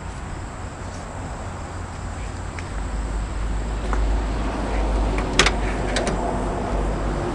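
Two sharp metallic clicks about a second from the end, a 1974 Volkswagen Karmann Ghia's door latch being worked as the driver's door is opened, over a steady low outdoor rumble.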